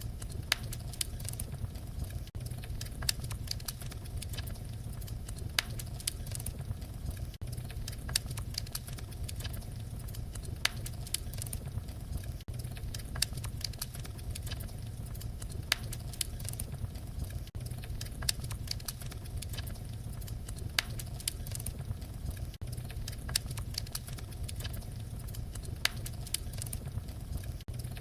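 Wood fire crackling, with frequent sharp irregular pops over a steady low rumble. The level dips briefly about every five seconds.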